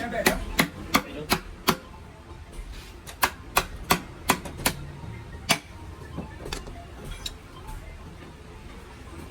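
Sharp hammer taps during a gearbox rebuild: two quick runs of about five strikes each, at roughly three a second, then one more strike and a few fainter taps.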